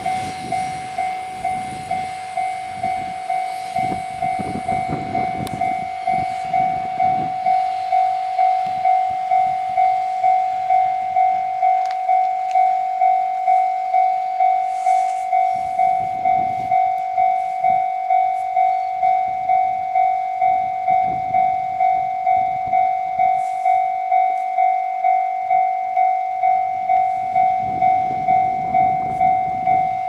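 Japanese level-crossing warning bell ringing on and on, a little under two strikes a second. Under it, a Super Hakucho express train rumbles past on the rails in the first several seconds, then fades.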